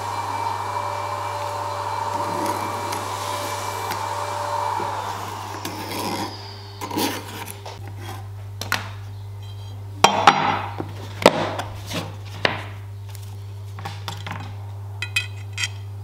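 Light clinks and knocks of a steel knife blade and metal hand tools being handled and set down on a wooden workbench, the loudest just after the middle. Before them, a steady rushing noise fades out about five seconds in. A low hum runs under it all.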